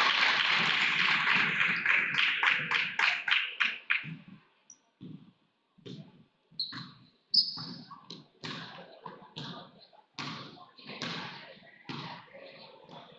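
Gym crowd noise with rhythmic clapping that dies away about four seconds in, then a quieter stretch of basketballs bouncing on the hardwood court, sneakers squeaking and scattered knocks.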